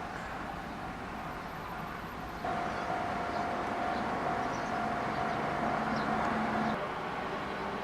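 Japanese railway level-crossing alarm bell ringing in a steady repeating tone over rail noise. The bell becomes much louder about a third of the way in and drops back near the end.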